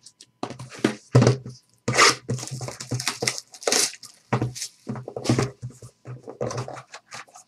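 Clear plastic wrapping crinkling and tearing by hand in a run of irregular rustling bursts as it is pulled off and crumpled.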